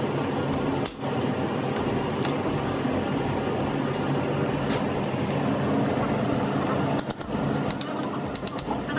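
Steady rushing hiss of a gas torch flame, as used to shrink heat-shrink tubing onto a medium-voltage cable termination, with a few brief clicks and dips.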